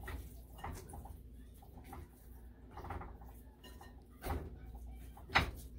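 Hands rubbing seasoning into raw whole fish in a glass bowl: soft wet handling noise with small knocks of fish and fingers against the bowl. The loudest is a sharp knock about five seconds in, after another just past four seconds.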